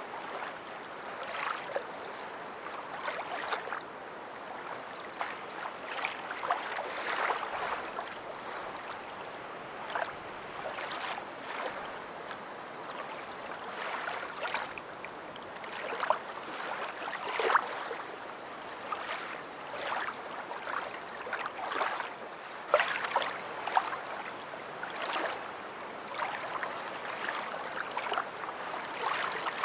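Water lapping and splashing in irregular small surges.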